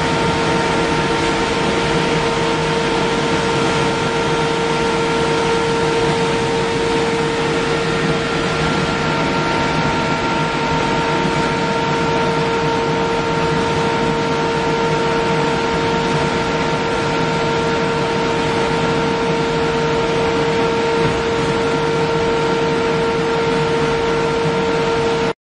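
Steel coil processing line running as hot-rolled steel strip winds onto a coil: a steady machine drone with a constant whine, cutting off suddenly near the end.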